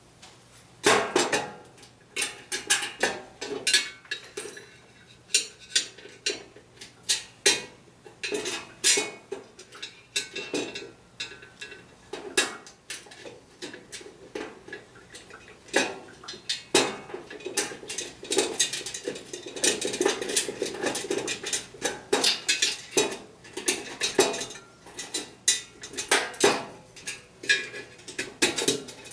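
Irregular metallic clinks, clicks and knocks of hand tools and fasteners as screws are worked in to secure a metal adapter collar on an electric meter socket, with a denser run of rapid clicking past the middle.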